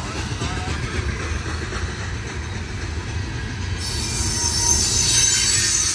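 Empty CSX coal train's cars rolling past on the rails, a steady low rumble of wheels on track. High-pitched wheel noise grows louder about four seconds in.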